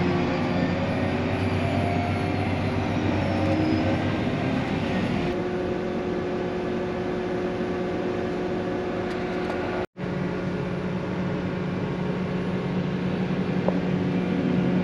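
Diesel engine and drivetrain of a harvest machine running steadily, heard inside the cab, with a shifting whine over the first few seconds.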